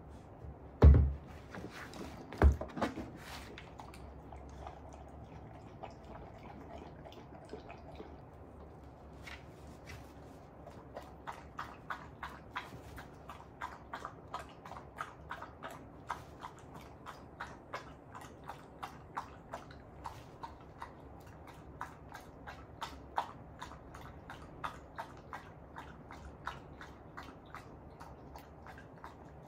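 Elderly 13-year-old golden retriever lapping from a bowl held up to her mouth, a fast, regular run of small wet clicks. Two loud knocks come about a second in and again a second later.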